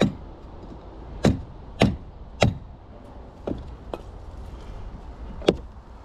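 Mallet knocking on a tool set against a stuck battery cable terminal, trying to drive the clamp loose: about seven sharp, irregularly spaced blows, a few of them fainter.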